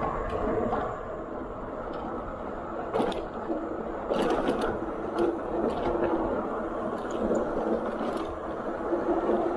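Fat-tire electric bike being ridden on asphalt: steady tyre and wind noise on the microphone, with a faint steady whine from the rear hub motor that comes and goes, and a few sharp clicks and rattles from the bike over bumps.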